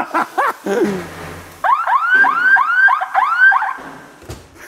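Electronic alarm going off: a rapid series of rising whoops, about three a second, for roughly two seconds. It is a tamper alarm that sounds as soon as someone touches the thing it guards.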